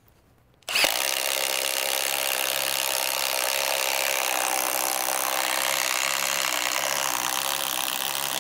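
Milwaukee M18 Fuel impact driver hammering steadily as it drives a double-fluted self-feeding auger bit into wood, starting under a second in and running without a pause.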